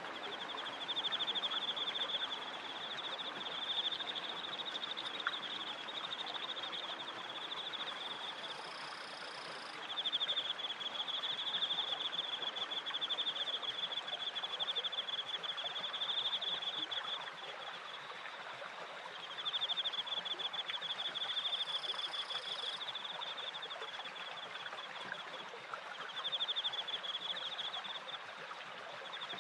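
Crickets trilling in long pulsing phrases, each a few seconds long with short breaks, over the steady rush of water from a turning wooden water wheel and its stream.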